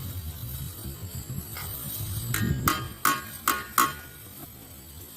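Five sharp light knocks, each with a brief ringing tone, about three a second, over a low background hum.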